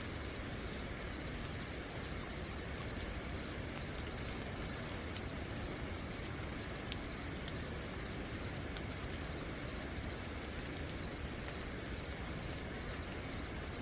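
Steady rain falling at night, with crickets chirping in a continuous high pulsing tone and a few sharp drip ticks.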